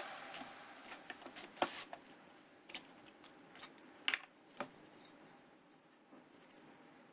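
Faint, scattered light clicks and taps, about a dozen over the first few seconds, then near silence.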